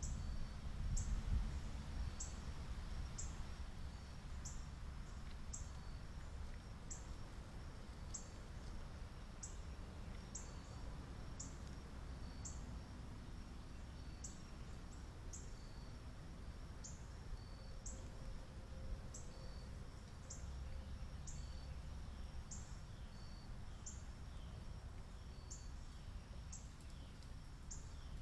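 Outdoor ambience: a short, high chirp repeats about once a second over a low, steady rumble.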